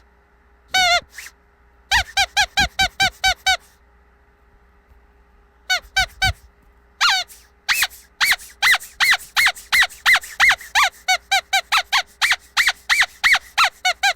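Squeaky dog toy squeezed over and over: short high squeaks, each bending up and then down in pitch, in quick runs with short pauses between. The longest run, a steady string of squeaks at about three a second, fills the second half.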